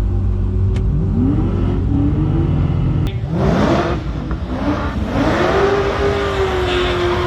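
Turbocharged 2JZ-GTE straight-six in a manual Holden VH Commodore on a full-throttle drag pass: the engine note climbs from the launch about a second in, drops and climbs again at the gear changes around three and four and a half seconds, holds high in top gear, then falls away as the driver lifts off at the end.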